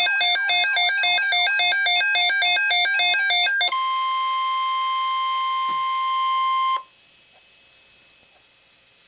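An electronic alert sound, a fast repeating pattern of several beeping tones, runs until nearly four seconds in. It gives way to the steady 1050 Hz NOAA Weather Radio warning alarm tone, which cuts off abruptly about three seconds later and leaves faint radio hiss.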